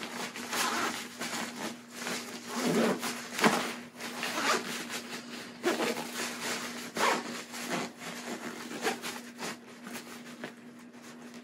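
Zipper of a fabric compression packing cube being pulled in short, uneven strokes as the cube is squeezed shut and compressed.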